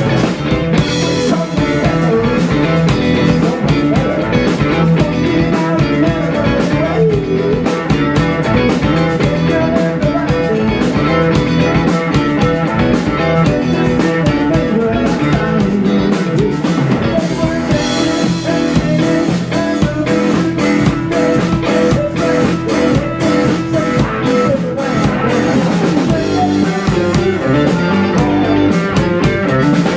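Live rock band playing a blues-rock number: guitar over a drum kit, steady and unbroken.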